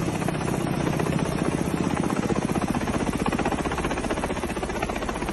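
Helicopter flying low overhead, its rotor blades chopping in a rapid, even beat.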